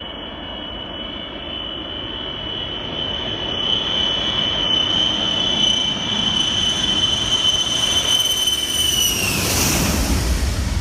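Jet aircraft engines passing close by: a high turbine whine builds in loudness, then drops in pitch at about nine seconds as the aircraft goes past, and gives way to a broad rushing rumble.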